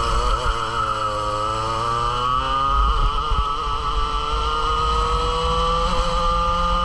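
Two-stroke kart engine heard onboard, running at speed; its pitch wavers through a corner, then climbs slowly and steadily as the kart accelerates.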